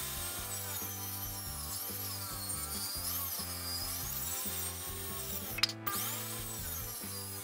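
Table saw, its blade tilted to 15 degrees, ripping a bevel along a reclaimed timber decking board, the blade's whine dipping and recovering under load. It breaks off briefly about five and a half seconds in and then carries on. Background music plays underneath.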